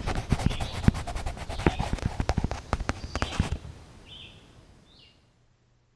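Water-soluble coloured pencil tapping and scratching in quick, irregular short strokes on watercolour paper, stopping about three and a half seconds in. A bird chirps twice after the strokes stop, and the sound then fades out.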